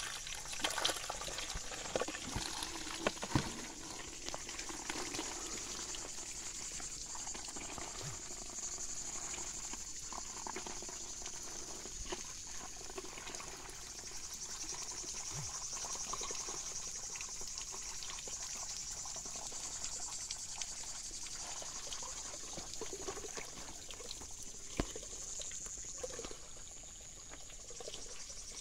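Water running from a plastic pipe into a container, with a steady high-pitched insect chorus of crickets throughout. A few sharp knocks come in the first few seconds.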